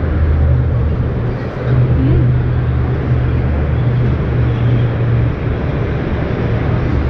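Busy exhibition hall ambience: a steady low rumble under an even wash of background noise.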